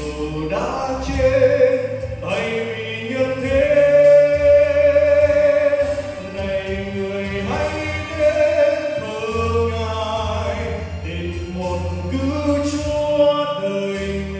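A man singing a Vietnamese Christian song through a microphone and PA, with long held notes over instrumental accompaniment.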